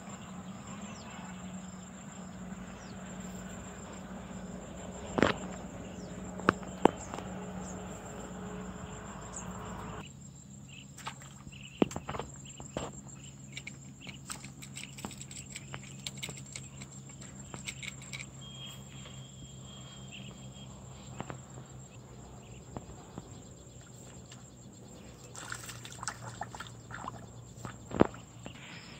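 Outdoor pond-side ambience: a steady high-pitched insect drone with a faint low hum beneath, broken by scattered short clicks and knocks. A brief high whistle sounds about two-thirds of the way in.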